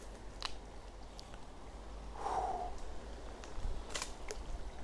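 Handling noise from a handheld camera: a few sharp clicks and knocks over a low rumble, with one short mid-pitched sound about two seconds in.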